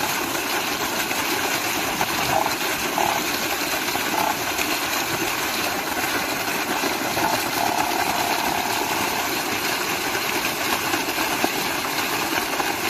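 A full stream of water gushing from a pipe outlet and splashing onto the ground, a steady rushing noise: the discharge of a 10 HP electric pump running on power from a tractor PTO generator.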